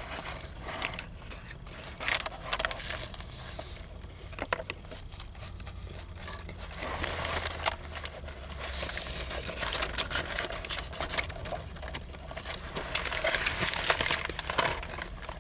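Paper sandwich wrapper crinkling and rustling as the sandwich is handled, with scattered small clicks; the rustling grows louder twice, about nine and thirteen seconds in.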